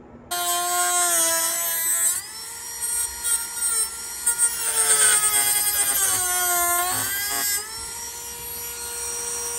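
A Dremel rotary tool with a cut-off wheel starts up and cuts into the edge of a plastic front lip spoiler, making a high-pitched whine. The pitch sags when the wheel bites into the plastic and climbs back when it eases off.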